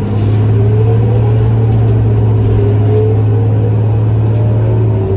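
Inside a 2000 New Flyer D40LF diesel bus under way: the Cummins ISL engine hums steadily. A whine rises with speed over a couple of seconds, then rises again near the end as the bus accelerates.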